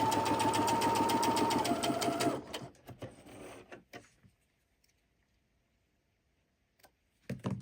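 Electric sewing machine stitching at an even pace, a steady motor whine under rapid, regular needle strokes, which stops about two and a half seconds in. Then a little soft fabric handling, a quiet stretch, and a couple of sharp clicks near the end.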